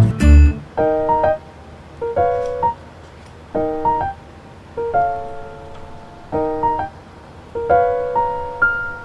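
Background music: a light piano tune, short chords or phrases about every second and a half, opening with a low thump.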